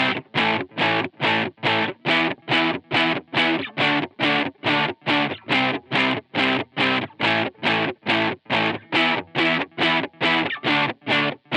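Electric guitar played through the Valeton GP100 multi-effects unit's Tube Clipper distortion, in short, cut-off distorted chords struck in a steady rhythm of about three a second.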